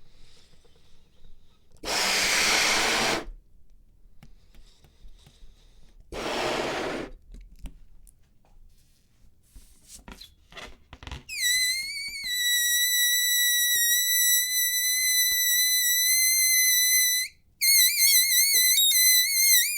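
Air rushing twice in short bursts, a few faint clicks, then the stretched neck of a deflating rubber balloon letting out a high, steady squeal for about six seconds. It breaks off briefly, then squeals again with a wavering pitch.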